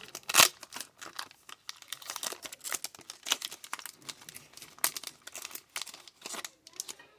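Trading-card pack wrapper crinkling and tearing as a pack is opened by hand, a run of irregular crackles with the sharpest rip about half a second in.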